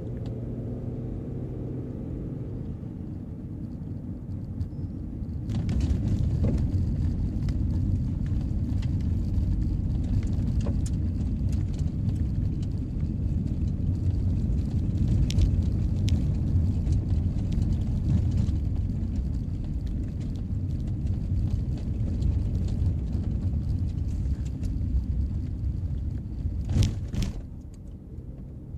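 A car driving, heard from inside the cabin. A steady low road-and-engine hum on pavement changes about five seconds in to a louder, rough tyre rumble with scattered ticks and clicks as the car runs on a dirt-and-gravel road. A sharp knock comes near the end, just before it drops back to a quieter hum on pavement.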